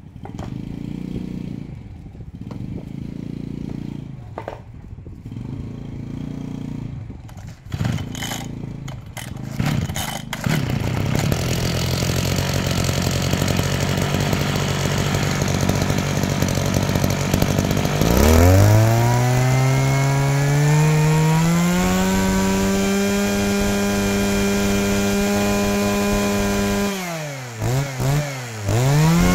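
Mitsubishi TL261 small two-stroke brush-cutter engine being pull-started, uneven for the first several seconds. It catches and idles about ten seconds in, then about eighteen seconds in revs up to a high, steady speed. Near the end its revs drop sharply and pick up again twice.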